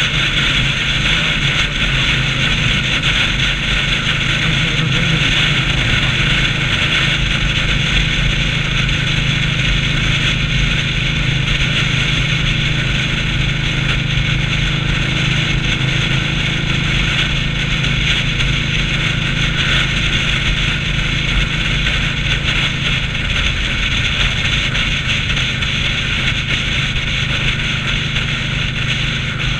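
Indian Scout motorcycle's V-twin engine running steadily at highway cruising speed, with a constant rush of wind and road noise.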